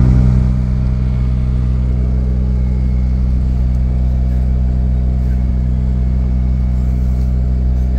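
Truck diesel engine running steadily at low revs, heard from inside the cab as the lorry creeps along at walking pace. It is a little louder for the first half second, then settles to an even note.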